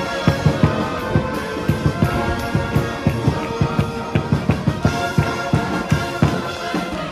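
College marching band playing loudly: brass horns holding chords over a quick, steady drum beat.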